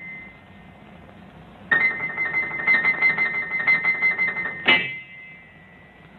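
Piano: after a short pause, a fast, busy run of notes about two seconds in, ending in one loud struck chord that rings on and fades away.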